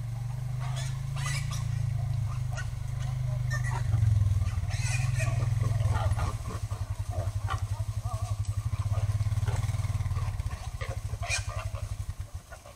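Feral hogs in a net trap grunting: a deep, continuous grunting that turns into a fast pulsing run about six seconds in and stops just before the end, with higher squeals and rustling over it.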